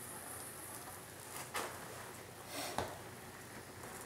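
Faint sounds of wood glue being squeezed from a plastic glue bottle onto a thin wooden strip, with a couple of brief soft rustles, about one and a half seconds in and again near three seconds.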